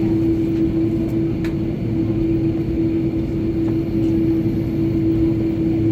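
Steady jet engine and airflow noise inside the cabin of an Aer Lingus Airbus A330 airliner: a loud, even rumble with a steady droning tone running through it.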